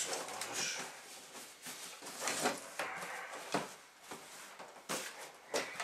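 Cardboard boxes being handled: a long white cardboard box sliding and scraping against a larger cardboard box as it is lifted out, with a few short knocks in the second half.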